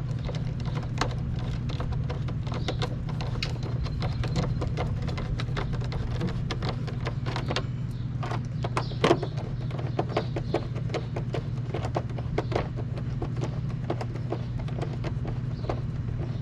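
Irregular clicks and knocks of hands working plastic wiring connectors and clips while an engine control module is swapped, with the loudest knock about nine seconds in, over a steady low hum.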